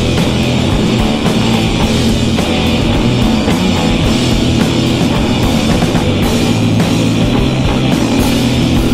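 Loud rock music with drums and electric guitar.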